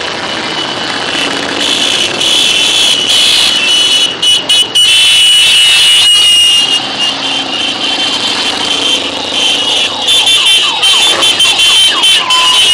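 A stream of large cruiser and touring motorcycles riding past one after another, engines running loud, with some riders revving up near the end.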